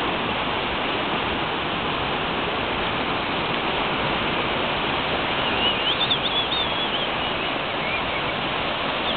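Steady rush of a waterfall's falling water, close by. About five and a half seconds in, a bird calls briefly with a few quick, wavering high chirps over the water noise.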